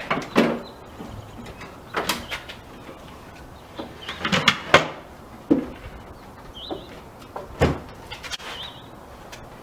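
Irregular wooden knocks, clunks and sliding sounds as the planer compartment of a mobile power tool cart is handled: its support wheel locked and its parts moved into place.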